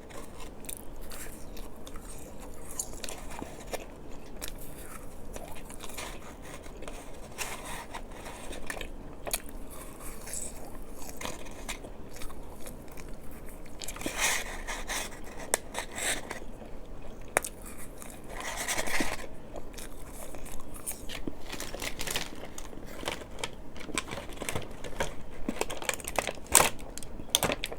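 Close-up crunching and chewing of candy, with many small scattered clicks and crackles and two brief louder noisy bursts about halfway through.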